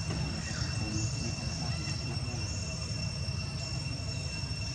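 Outdoor background ambience: a steady high-pitched insect drone over a continuous low rumble, with a few faint high chirps.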